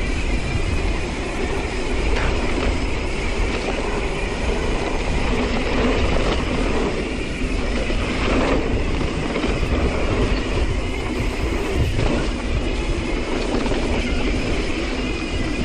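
Mountain bike riding over a dirt trail: steady tyre roar and rattling from the bike, with wind rumbling on the microphone.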